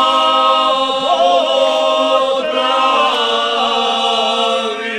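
Male vocal group singing a cappella, holding one long sustained chord with a slight waver, fading near the end.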